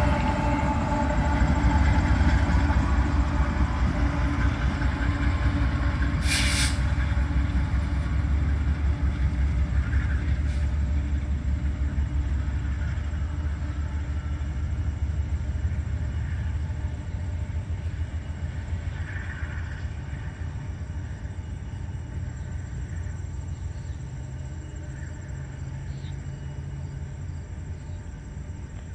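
Freight train of empty coal hoppers moving away, with its rear GE Dash 9-44CW distributed-power diesel locomotive running: a low rumble and engine drone that fade steadily. A brief hiss about six seconds in.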